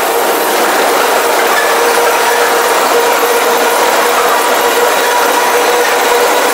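Freight train's covered hopper cars rolling past, steel wheels on the rails making a loud, steady rumble and rattle, with a thin steady tone running underneath.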